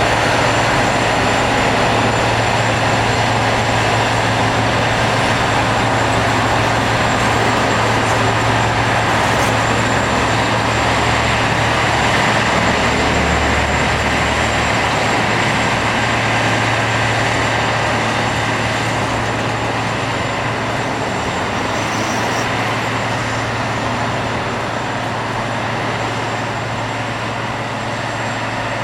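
Rail grinder at work: grinding wheels running on the railhead with the machine's engines, a loud steady harsh noise with a constant low hum that eases off gradually over the second half.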